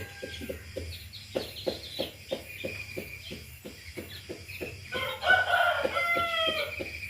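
Aviary ambience: small birds chirping high and thin over a steady pulsing of about four beats a second. A louder, drawn-out call with falling pitch comes about five seconds in and lasts under two seconds.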